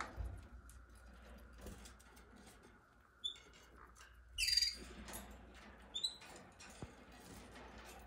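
Budgerigars chirping: a few short high chirps and one louder call about four and a half seconds in, over faint ticking as they peck at seed in the feeder.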